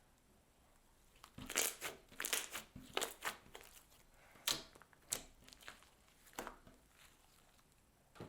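Slime mixed with clay and floam beads being squeezed and pressed by hand, giving a run of crunchy crackles and pops. The crackles start about a second in and thin out after about six seconds.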